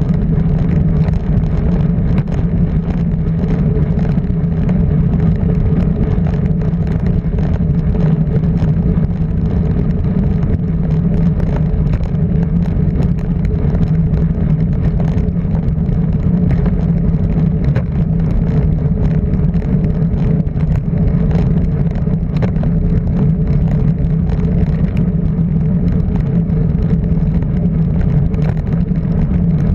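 Motor vehicle engine running at a steady, unchanging speed, an even loud drone throughout.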